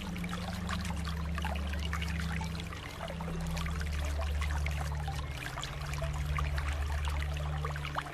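Water flowing and trickling steadily, a dense patter of small splashes over a steady low rumble.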